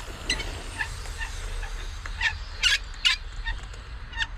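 Handle of a frost-free outdoor hose tap squeaking as it is turned open: about ten short, high squeaks at uneven spacing.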